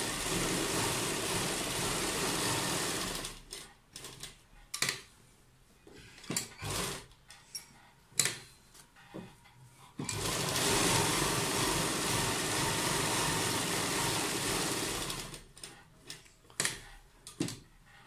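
Sewing machine stitching fabric. It runs steadily for about three seconds, stops with a few scattered clicks and knocks, runs again for about five seconds from ten seconds in, then stops again with more clicks near the end.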